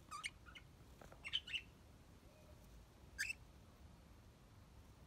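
Budgerigars giving short, scattered chirps: two quick calls at the start, a cluster of three about a second in, and a single call a little after three seconds.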